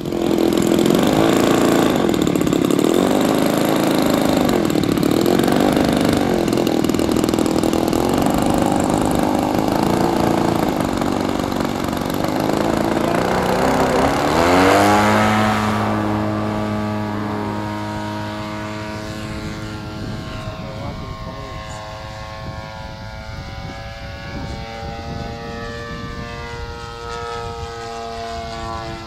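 Radio-controlled aerobatic model plane's propeller engine, its pitch rising and falling for the first half, then surging to full power for takeoff about halfway through. It settles into a steady drone that slowly fades as the plane climbs away.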